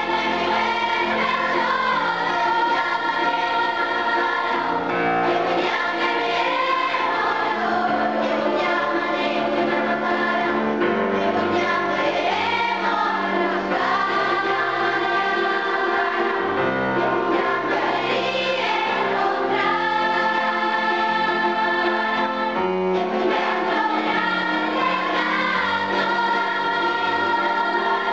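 Youth choir singing a piece in several parts, with a grand piano accompanying, voices held and moving together without a break.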